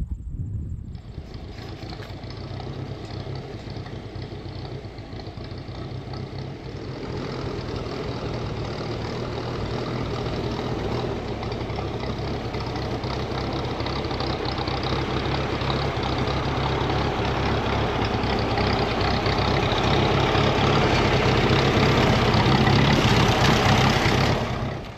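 A vehicle engine running steadily, slowly growing louder, then cutting off suddenly near the end.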